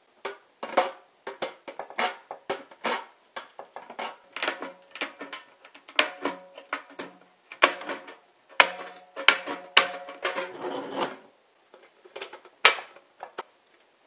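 Tin snips and pliers trimming the jagged edge of a hole in a thin steel can: a run of irregular sharp metal snips and clicks, with the can body ringing briefly in the middle.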